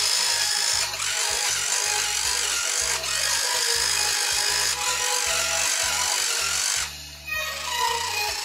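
Battery-powered Barbie toy horse playing music from its built-in speaker while the small electric motor that moves its legs whirs along with it, with brief dips a couple of times and a drop near the end.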